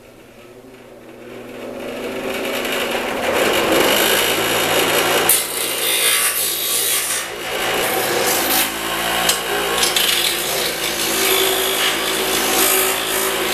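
A grinder's motor hums steadily, then a small glove box hinge part is pressed against the wheel from about a second and a half in. It makes a loud, rasping grind that swells and eases as the pressure changes, with a few brief lifts off the wheel.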